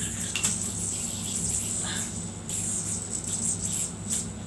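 Red C3 Gamma Crash delrin plastic yo-yo spinning during tricks, with a steady high-pitched whir and several quick swishes and snaps of the string.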